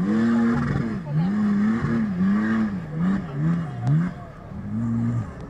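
Off-road 4x4 engine revving up and down over and over as the driver blips and works the throttle through mud, about one to two swells a second. It eases off near the end.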